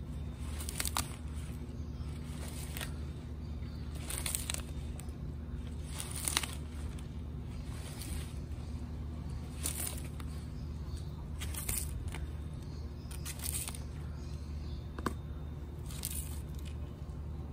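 Galapagos giant tortoise biting into and tearing off pieces of a fresh banana leaf, a crisp tearing crunch every one to three seconds. A steady low hum runs underneath.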